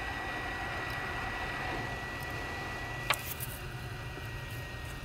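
Hot air rework station blowing with a steady hiss and a thin, high, steady whine. There is a single click about three seconds in, after which the whine fades while the hiss carries on.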